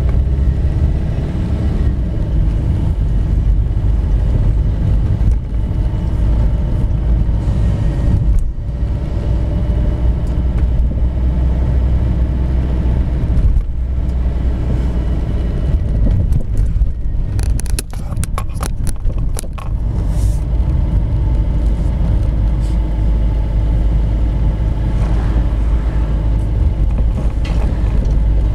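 Car being driven, heard from inside the cabin: steady engine and road rumble, with a quick run of sharp knocks a little past halfway through, taken to be the front-end noise being demonstrated.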